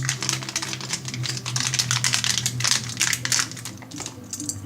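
Loose plastic keyboard keycaps clicking and clattering against each other as they are rummaged through and handled, a rapid, irregular run of small hard clicks.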